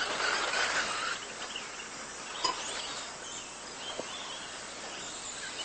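Electric RC stadium trucks running on a dirt track, their motors whining and wavering in pitch over a steady background hiss.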